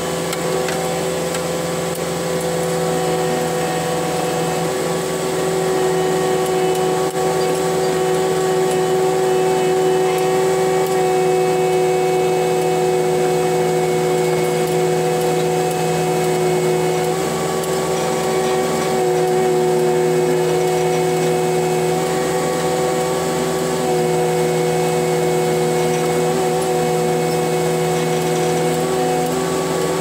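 Cat 289D3 compact track loader's diesel engine and hydraulics running steadily at working throttle, heard from inside the closed cab: a constant drone with a steady whine over it while the machine grades dirt with its dozer blade. It gets a little louder about five seconds in.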